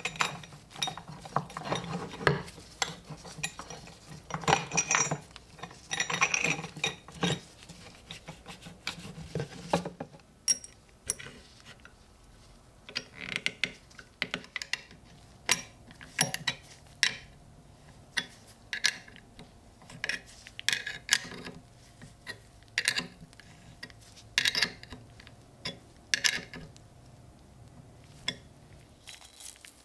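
Small metal clicks and scrapes of a bolt being fitted through a pickaxe's steel side straps and wooden handle, then its nut turned with an open-end wrench. Dense scraping and clicking for the first third, then separate sharp clicks a second or so apart.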